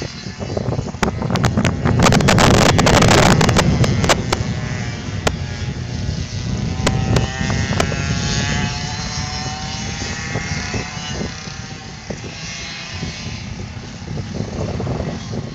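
Yamaha go-kart engine running as the kart laps the track, its pitch sliding up and down as it speeds up and slows for corners. About two seconds in, wind rumbles and crackles on the microphone for a couple of seconds, the loudest part.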